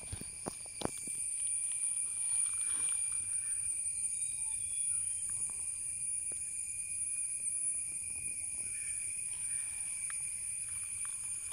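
Insects singing in steady, high-pitched tones, with a few footsteps on gravel in the first second.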